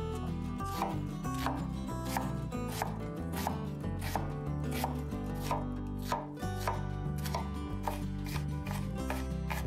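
A knife chopping on a cutting board in a steady rhythm, somewhat under two cuts a second, over background music.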